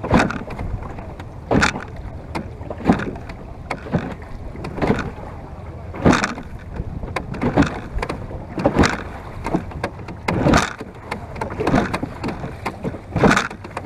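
Choppy water splashing against the bow of a wooden Venetian boat under way, in repeated surges about every second and a half, over a steady low rush of water and wind.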